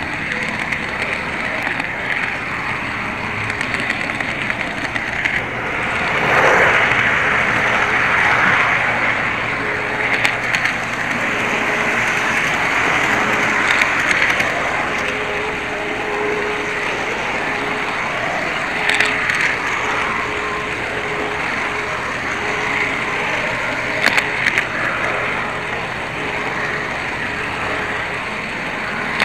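An HO scale model train running on its track, heard from a small camera riding on it: a steady rolling rattle of wheels on rail, louder for a few seconds about six seconds in, with a few sharp clicks.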